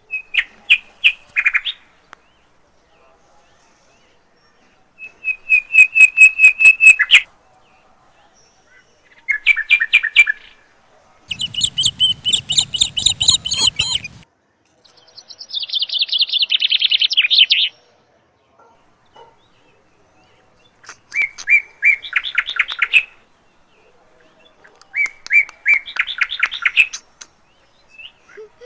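Indian palm squirrel giving its chirping call: bouts of rapid, evenly repeated high chirps lasting one to three seconds, with pauses of a few seconds between them. A low rumble runs under one bout in the middle.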